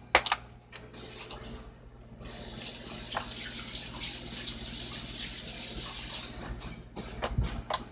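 Water running from a tap for about four seconds and then shutting off, with sharp clicks and knocks just before and after it.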